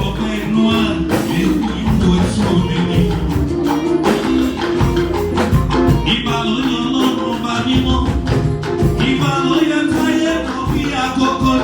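Live church music: rapid tambourine and drum strokes under held melodic notes from an anthem.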